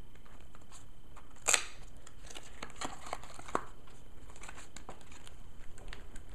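A small cardboard box and paper packaging being handled and opened by hand: a sharp click about a second and a half in, then light rustling and scattered clicks.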